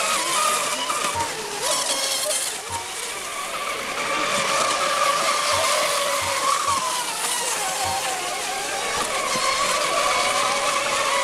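Several racing RC monohull boats running at speed, their high-revving motors making a steady, high-pitched note of several tones that drift slightly up and down in pitch as the boats pass, with the hiss of spray.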